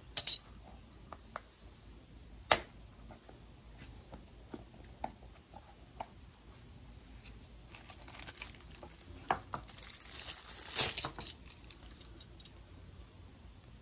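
Hard plastic toy case being handled and opened, with scattered sharp clicks (the loudest about two and a half seconds in), then crinkling of the clear plastic packaging inside, twice, near the end.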